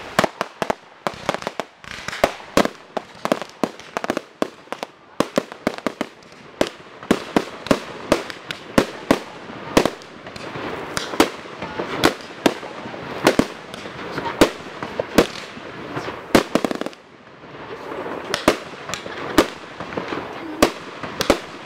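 Professional aerial fireworks display: a rapid, irregular string of sharp bangs, several a second, as rising comets and star bursts go off, with a steady rushing noise between the reports.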